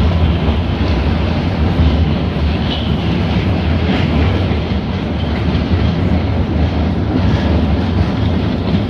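New Orleans streetcar running along its track, heard from inside the car: a steady, loud rumble of steel wheels on the rails and the car's running gear.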